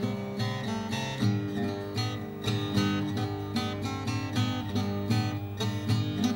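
Background music: an acoustic guitar strumming in a steady, even rhythm.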